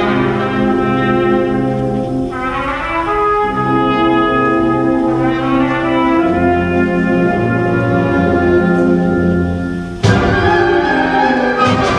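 A wind band plays slow, sustained brass chords, with a trumpet among the held notes. About ten seconds in, the sound changes abruptly to a fuller passage with sharp percussion strikes.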